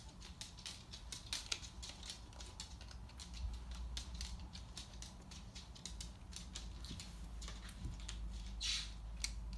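Loose dirt being scooped and dropped into a small plastic tub: scattered light ticks and patter, with a short sifting hiss near the end.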